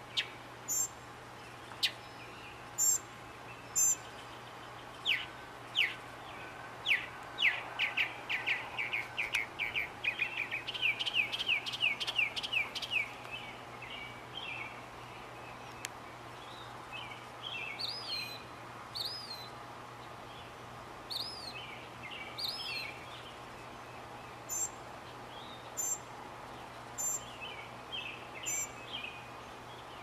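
Mockingbird singing: a few sharp high notes, then a fast run of the same down-slurred note repeated many times, then varied phrases, each given in short repeated series. A steady low hum and background noise run underneath.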